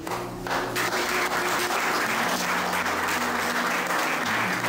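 Audience applauding, with the clapping starting about half a second in. Music plays steadily beneath it.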